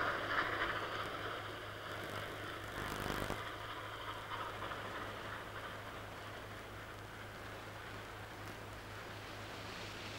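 Kingston Flyer steam train running by and fading into the distance, leaving a faint steady rumble with a low hum.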